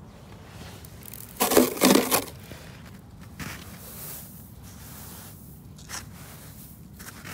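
Snow crunching and scraping under a gloved hand and a toy car being pushed through it, with two louder crunches close together about one and a half to two seconds in and fainter ones after.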